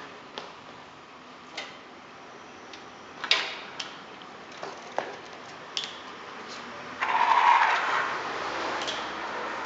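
A few scattered clicks and knocks, then about seven seconds in the drive motor of a Yamaha electric-assist bicycle starts whirring and keeps running with an abnormal noise.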